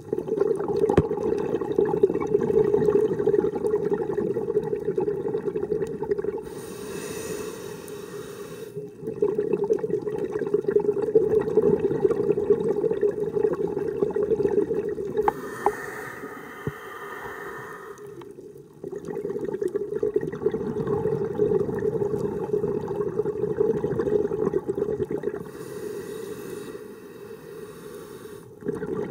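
Scuba diver breathing through a regulator underwater: three long, bubbling exhalations, each followed by a shorter, hissing inhalation.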